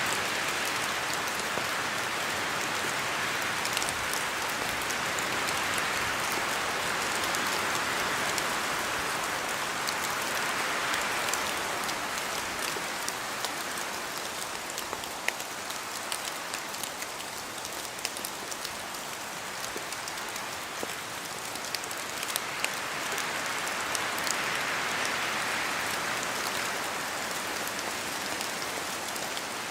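Steady rain falling in a forest, with many separate drops ticking sharply over the hiss as they fall from the trees. The wind swells and eases in slow gusts, twice rising to a peak.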